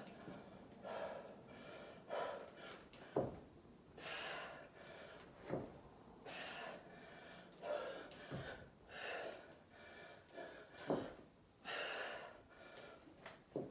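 Hard, gasping breaths of a woman lifting a pair of dumbbells overhead rep after rep, a loud breath in and out with each rep. A short thump comes about every two and a half seconds, in time with the reps.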